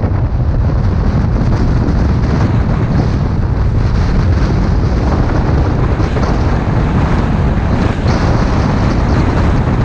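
Steady, loud wind noise buffeting the microphone of a camera mounted on the outside of a car at highway speed, with road noise from the moving car underneath.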